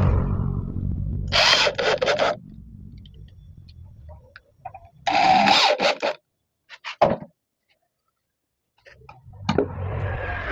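Corded electric hand drill boring into a plywood board in two short bursts, with a few sharp clicks after the second. Knocking and rustling start up near the end.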